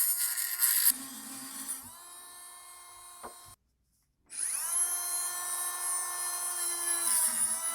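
High-speed rotary cutting tool whining as it cuts into a bone conduction headphone earpiece. The motor spins up twice, with a brief silent gap between, holds a steady pitch and winds down near the end.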